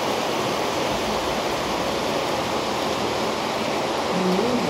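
Steady rushing of floodwater pouring along a flooded street during a torrential rainstorm. A voice begins near the end.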